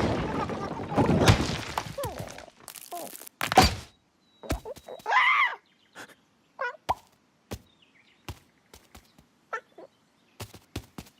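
Cartoon slapstick sound effects: a loud crashing noise that dies away over the first two seconds, a sharp whack, then a short bird-like squawk and a scatter of light taps and clicks with quiet gaps between them.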